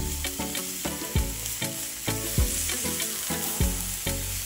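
Sea scallops searing in an oiled pan on high heat, giving a steady sizzle as they are turned over with tongs. A steady beat of low thumps runs underneath.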